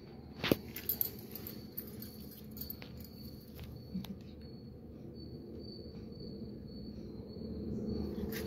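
Quiet room noise: a low hum, with a thin high whine that comes and goes and a sharp click about half a second in.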